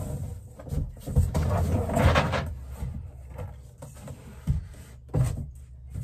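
A large thin sheet of beadboard paneling being handled and lifted up against a bus's curved ceiling. A stretch of scraping and rustling about one to two and a half seconds in is the loudest part, and a few separate knocks follow near the end.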